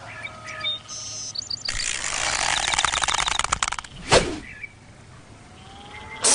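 Cartoon sound effects: a few short bird chirps, then about two seconds of rapid fluttering rattle, cut off by one sharp swoosh falling in pitch, with a few faint chirps after.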